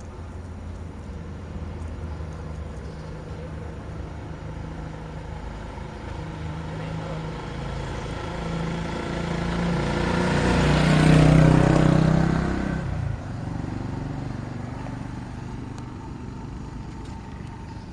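A motor vehicle passing on the road. Its engine grows louder over several seconds, is loudest about eleven seconds in, then drops off sharply and fades away.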